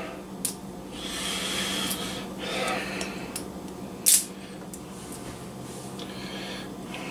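Hands picking and peeling the plastic wrap seal off a hot sauce bottle's cap: rustling and scratching with a few sharp clicks, the loudest about four seconds in.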